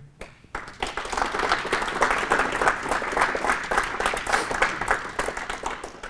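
Audience applauding, starting about half a second in and fading out near the end.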